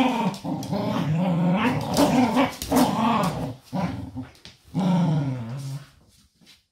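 Corgis play-growling while tugging on a blanket together, long wavering growls with short breaks that fade out about six seconds in. The growling is play during a game, not a fight.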